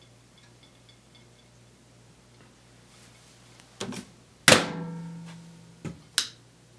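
Faint ticking, then a knock and a loud thunk about four and a half seconds in, with a short ringing hum that fades over a second or so, followed by two quick clicks near the end: something handled and set down or shut in a kitchen.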